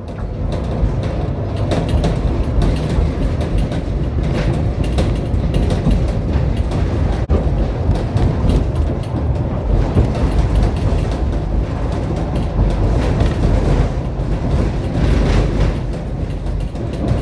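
Tram running along the track, heard from on board: a steady low rumble of wheels on rails with scattered clicks and knocks from the track.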